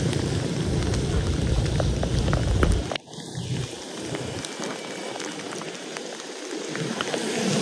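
Rain falling steadily, with many drops ticking close by, over a low rumble for the first three seconds; about three seconds in the rumble cuts off suddenly and the rain sounds lighter and thinner.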